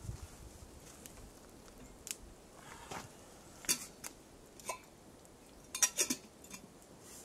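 Metal camping cookware clinking and clattering as it is handled at a campfire's stone ring: scattered sharp clinks, with a quick cluster of them near the end.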